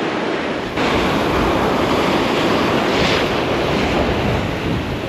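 Rough surf breaking and washing over a boulder shore, with wind on the microphone. It gets louder about a second in.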